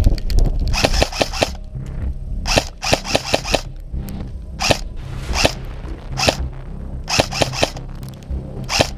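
Airsoft guns firing: sharp, crisp cracks in short quick strings of four or five, about a second in and again around three seconds, then single shots and short bursts every second or so.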